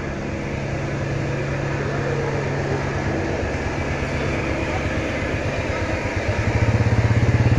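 Motorcycle engine running close by, a low throbbing drone that grows louder near the end.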